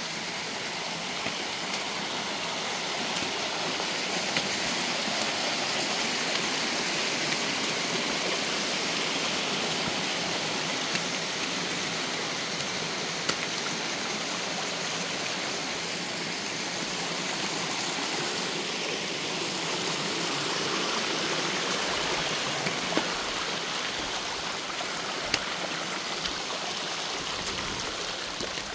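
Shallow creek water running steadily over sandstone slabs and small ledge cascades, with a few brief clicks scattered through.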